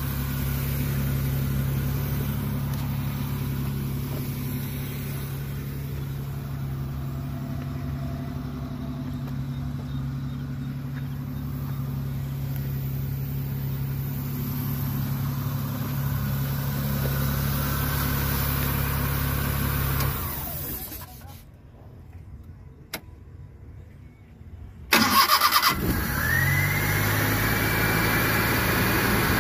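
Maruti Suzuki Omni's 796 cc three-cylinder petrol engine idling evenly, without misfiring, after its throttle body has been cleaned. About 20 seconds in the engine sound drops away for a few seconds, then comes back suddenly and runs on steadily, with a whine that rises and levels off.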